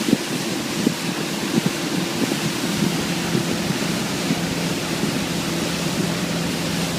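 Motorboat under way: a steady engine drone under rushing wind and water noise, with wind buffeting the microphone. Irregular sharp knocks come through in the first couple of seconds.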